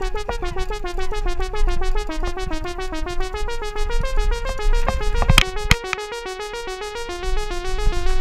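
Electronic music: a fast, repeating synthesizer arpeggio, with two sharp percussion hits about five and a half seconds in.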